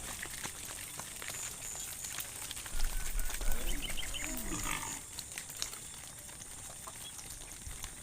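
A cow mooing once: a call about two seconds long that falls in pitch, over scattered small clicks.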